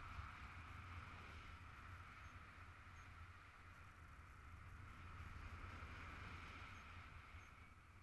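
Faint, muffled rush of wind on the camera during a paraglider flight, a steady noise with a low rumble underneath. It eases a little around the middle and swells again after.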